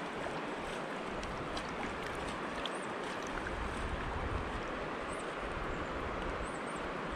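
Steady rushing of a flowing creek's water around the angler, with an uneven low rumble beneath it.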